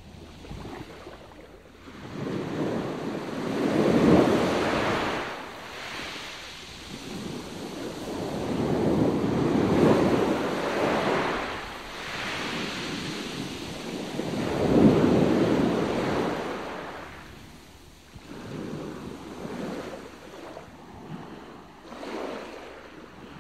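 Wind on the microphone and sea noise, swelling in three broad surges and easing off between them.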